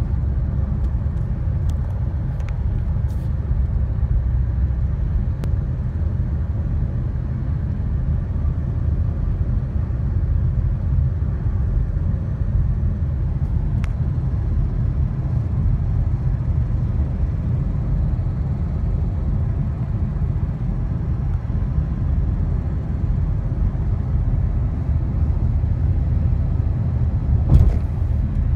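The 6.4-litre HEMI V8 of a 2012 Chrysler 300 SRT8 running with a steady low rumble, the car under way. A light ticking under throttle comes from a worn lifter that has eaten into a camshaft lobe.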